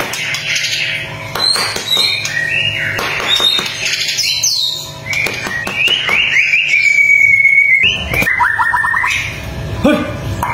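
White-rumped shama singing: a series of whistled phrases that glide up and down, with one long held whistle about two-thirds of the way through, followed by a quick run of short notes.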